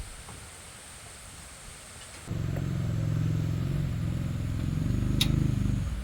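A tractor engine running, starting abruptly about two seconds in and cutting off just before the end, with a single sharp click shortly before it stops.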